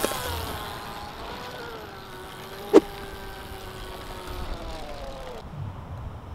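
Electric motor of an OSET 20R kids' trials motorcycle whining, its pitch sliding down and back up with the throttle during wheelie attempts, with one sharp knock a little under three seconds in. The whine stops at about five and a half seconds, leaving a low wind rumble.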